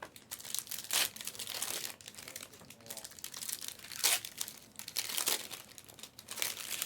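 Foil trading-card pack wrappers crinkling and tearing as packs of Panini Select Hybrid basketball cards are ripped open, with irregular sharp crackles; the loudest come about a second, four seconds and five seconds in.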